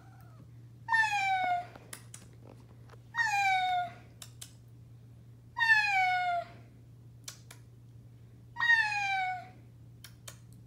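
Domestic cat meowing four times, two to three seconds apart, each meow under a second long and sliding slightly down in pitch.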